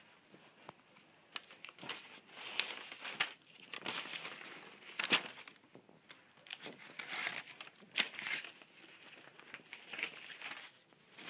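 Irregular rustling and crinkling with scattered light clicks and knocks: handling noise of someone rummaging through things in search of something.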